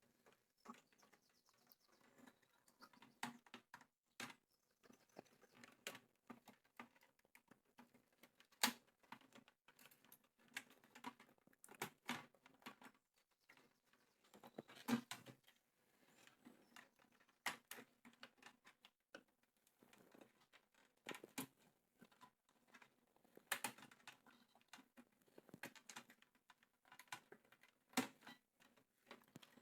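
Faint, irregular clicks and taps of hands and tools working at the internal cable plugs of a Pioneer SA-740 amplifier, with a few sharper knocks among them.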